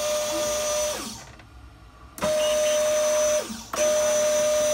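RC sailboat's sail winch running in three separate bursts as the sheets are wound in and out. It makes a steady, even-pitched whine: the first run stops about a second in, then after a pause it runs for about a second, stops briefly, and runs again.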